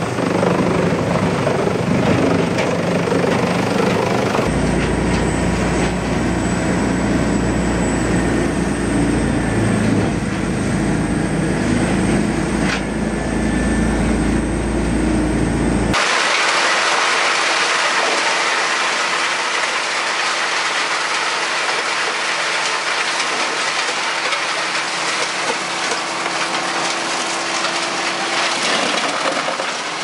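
Wood chipping machinery running and chewing through logs: a steady, heavy, loud machine din. The din changes abruptly about 4 seconds in and again about 16 seconds in. Over the last part a trailer-mounted drum chipper is running with a steady hum as logs go into it.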